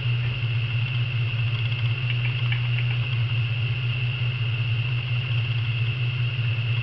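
A steady low hum with a fainter, steady high-pitched whine above it, and a few faint clicks about two to three seconds in.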